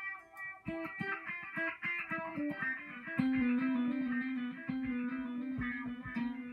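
Stratocaster-style electric guitar played solo: a run of quick single picked notes, then about three seconds in one long held note.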